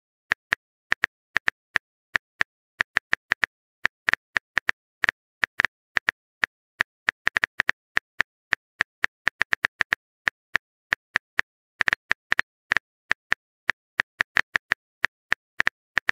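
Phone keyboard typing sound effect: a long string of short, sharp taps at an uneven few per second, with dead silence between them.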